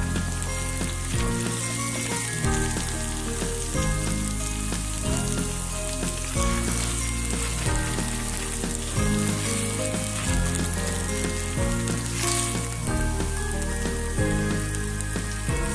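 Sliced onions with ginger and garlic paste sizzling steadily in hot oil in a wok, stirred with a wooden spatula. Background music plays under it, its bass changing note about every second.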